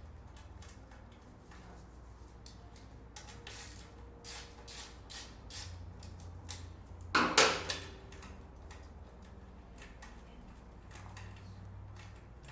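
Metal clinks and scrapes as the slip-on muffler and its mounting hardware are handled, with one louder clattering knock about seven seconds in.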